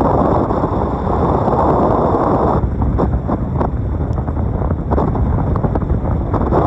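Strong wind buffeting the microphone: a loud, low rushing rumble that swells and eases in gusts.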